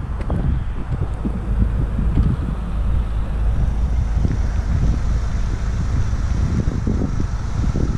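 Skoda Octavia RS engine idling, a steady low rumble, with wind buffeting the microphone.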